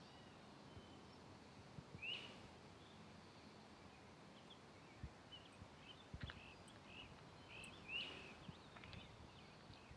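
Faint bird chirps in a quiet forest: short arched notes, the loudest about two seconds in and another near eight seconds, with a quick run of chirps in between. A few soft low thuds of footsteps on the trail come in the second half.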